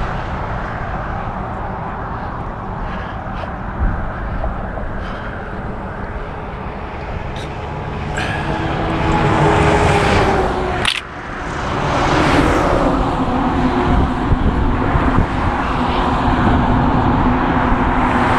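Highway traffic passing close by, a steady tyre and engine rush that swells as vehicles go past around the middle and again just after, with a few light clicks.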